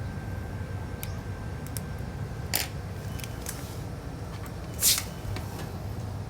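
Light clicks and short rustles of small objects being handled on a work surface, the loudest rustle about five seconds in, over a steady low hum.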